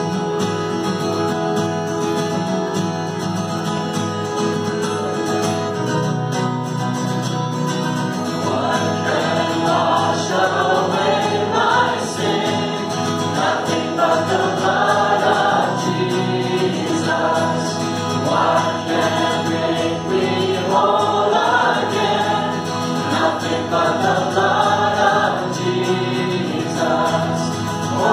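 Live worship music: a band with acoustic guitar plays a song, and voices come in singing about eight seconds in and carry on to the end.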